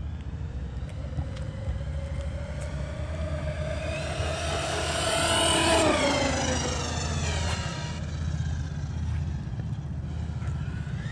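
Eachine EAT02 1/8-scale brushless RC monster truck making a high-speed pass: its motor whine rises in pitch and loudness as it approaches, peaks about halfway through, then drops in pitch as it moves away.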